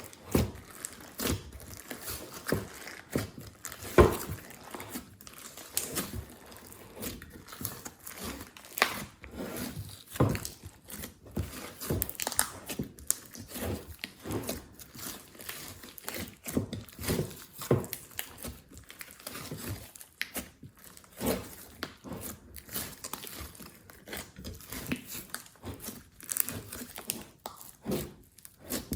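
Glossy slime being kneaded and squeezed by hand, giving a string of irregular sticky clicks, crackles and small pops.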